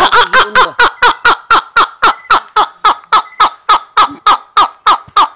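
A man laughing hard: a fast, even run of loud 'ha' bursts, about four or five a second, each falling in pitch.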